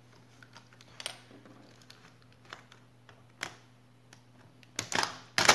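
Scattered plastic clicks and snaps as a laptop keyboard is pried out of its case, with two louder snaps near the end.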